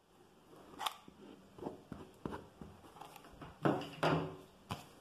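Handling noises from a fabric-covered milk carton and a padded, fabric-covered cardboard piece being hot-glued together: a run of light clicks and taps. About three and a half seconds in comes a louder rustle as the padded piece is brought to the box.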